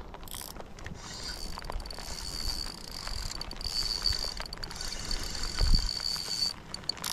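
Spinning reel being cranked to reel in a hooked bass: a steady high whir with a few brief breaks that stops about six and a half seconds in. A low thump comes shortly before the whir stops.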